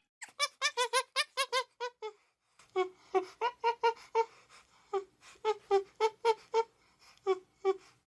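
Monkey chattering: rapid runs of short, squeaky pitched calls, about four or five a second, with a brief pause about two seconds in.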